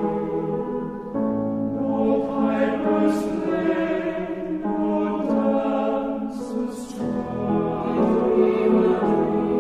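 Choir singing slow, held chords that change every few seconds, as background music.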